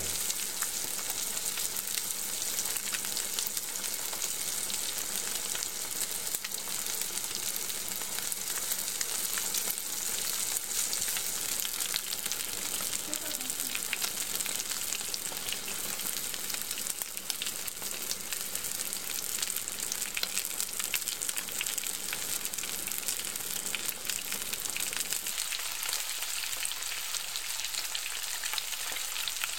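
Ribeye steak sizzling in a hot frying pan: a steady hiss with dense, fine crackling.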